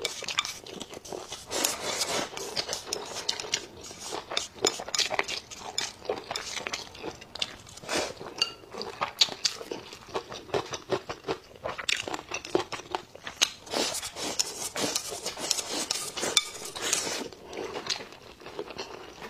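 Close-miked eating: a person chewing a mouthful with wet mouth sounds and crunches, while wooden chopsticks click and scrape irregularly against a ceramic bowl.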